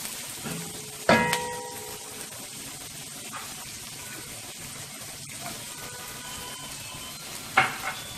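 Vegetables sizzling in hot oil in a non-stick wok as they are stir-fried. A utensil knocks against the pan with short ringing clanks: a faint one about half a second in, the loudest about a second in, and another near the end.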